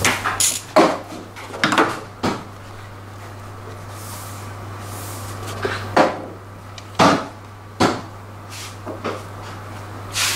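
Workshop clatter: scattered sharp knocks and clanks of hand tools and a plastic drain jug being handled under a scooter. A cluster comes in the first two seconds and a few more follow further on, over a steady low hum.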